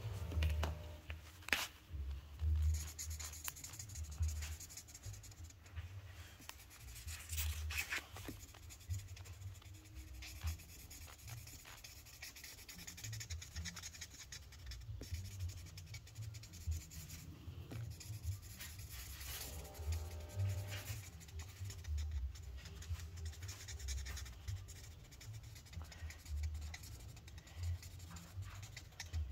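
Muffled scratching and rubbing of fabric against a phone's microphone, with irregular low thumps of handling noise.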